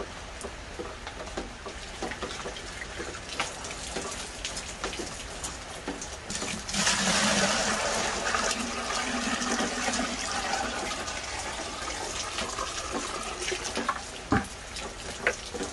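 Steady light patter of rain, then about seven seconds in, rainwater poured from one plastic bucket into another: a sudden loud gushing pour that tapers off over several seconds. Two sharp knocks near the end.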